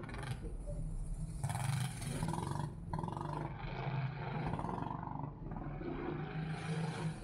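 Go-kart engine running steadily, with a rushing noise that swells and drops every second or two.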